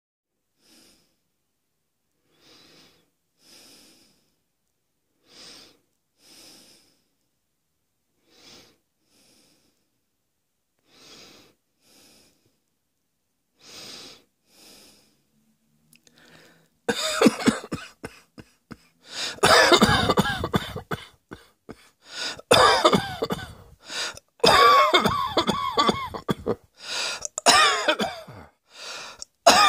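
A person coughing. For the first half the coughs are faint and short, one every second or two. From about 17 seconds in come loud coughing fits, one after another.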